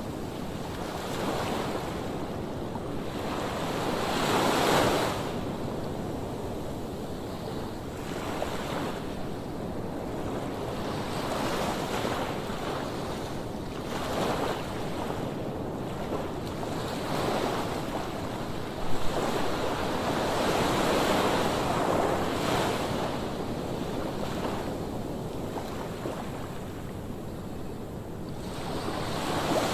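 Rough surf breaking on a sandy beach: a continuous wash of water that swells and crashes every few seconds, with wind buffeting the microphone. A brief sharp knock about two-thirds of the way through.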